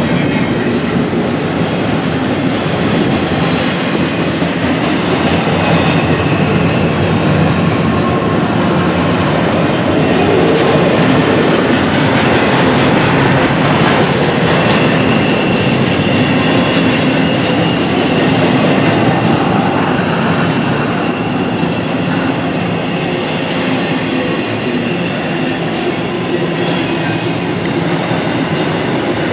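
Norfolk Southern freight train rolling past at close range, with a steady rumble of wheels on rail and clickety-clack over the rail joints. A faint high-pitched wheel squeal runs through the second half.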